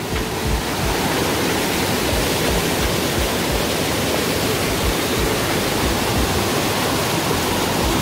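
Mountain stream rushing and splashing over boulders in small cascades, running high after heavy rain. A steady, loud, unbroken rush of water.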